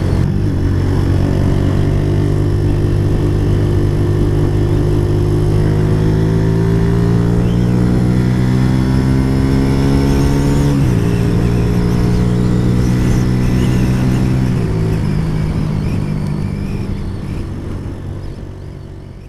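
Suzuki GN125's single-cylinder four-stroke engine under way, its pitch climbing slowly as the bike gathers speed. The pitch drops sharply about eleven seconds in, as at an upshift, and again slightly a few seconds later. It then fades out near the end.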